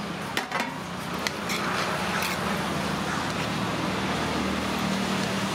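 Steady road traffic with a vehicle engine hum. A few light metal clicks in the first second or so as the aluminium lid is lifted off the rice pot.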